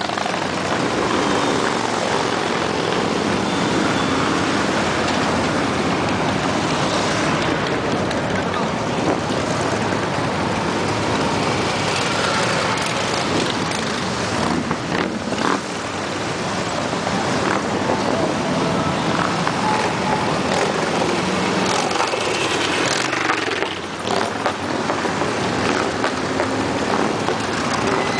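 A stream of Harley-Davidson V-twin motorcycles riding past, their engines and exhausts blending into one continuous sound, with brief dips about fifteen and twenty-four seconds in.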